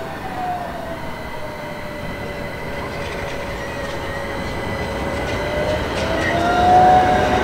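Articulated low-floor tram rolling past on curved street track, growing louder as it nears. Its wheels give a steady squeal that dips a little in pitch and rises again, over a low rumble. There is a single click about six seconds in.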